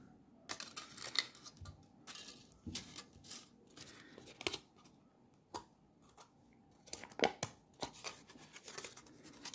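Faint, irregular crinkling of aluminium foil and small sharp clicks as the foil is folded and pressed tight around a beer-bottle-cap lure body with a small hand tool.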